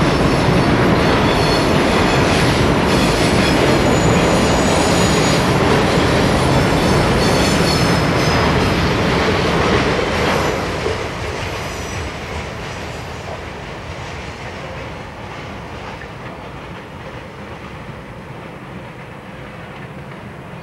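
Southern Pacific freight cars rolling past at speed, a loud rumble of steel wheels on rail with high-pitched wheel squeal coming and going. About ten seconds in, the end of the train passes and the sound fades steadily away.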